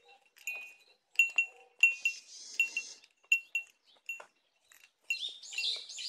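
A small metal bell jingling in short, irregular pings, as if swinging with movement. Hissy rustling comes in about two seconds in and again near the end.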